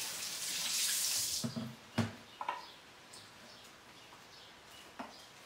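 Kitchen faucet running water into a sink, shut off about a second and a half in, followed by a sharp knock and a few faint clicks.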